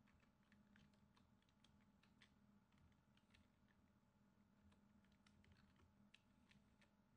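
Faint computer keyboard typing: irregular individual keystrokes, several a second, with a short pause about midway.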